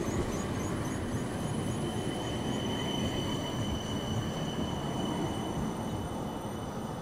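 A tram rolling past close by: a steady low rumble of wheels on the rails, with a thin high whine that swells in the middle and fades toward the end.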